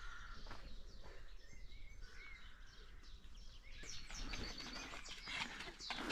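Small birds singing, with scattered faint chirps and whistles over a low steady outdoor rumble. From about four seconds in, soft footsteps on a dirt path join in.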